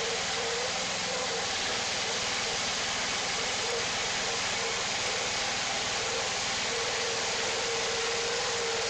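Wood-Mizer portable band sawmill running steadily, its engine giving a constant drone with a held tone that wavers slightly.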